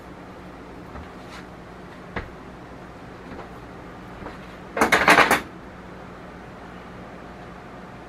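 A brief rattling clatter of metal kitchenware, the wire rack for the stovetop smoker being handled, about five seconds in, with a couple of faint knocks earlier over a steady low hum.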